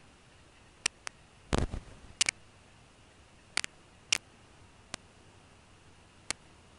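Scattered sharp clicks, about eight spread irregularly, with a heavier thump about one and a half seconds in, over a faint steady hiss.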